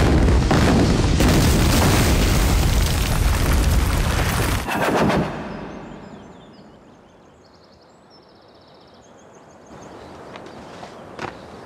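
A large explosion goes off suddenly, and its dense roaring blast noise stays loud for about five seconds before dying away over the next couple of seconds.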